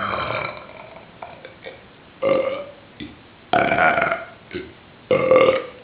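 A string of loud burps: four strong belches, each under a second long, about a second or so apart, with a few short faint catches between them.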